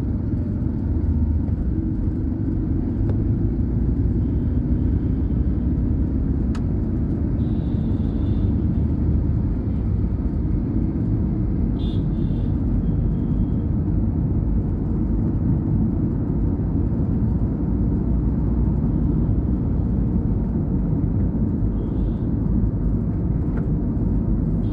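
Steady low rumble of road traffic, with a few faint short high-pitched sounds over it.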